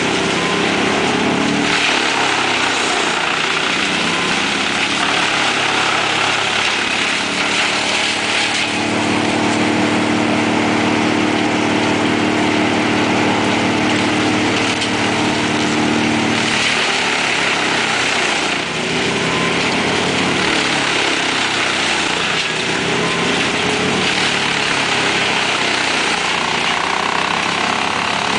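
Large truck-mounted wood chipper running while a grapple loader feeds it brush and branch wood: loud, continuous machine noise with a broad hiss. For several seconds in the middle a steady droning engine tone rises above it while a load goes through.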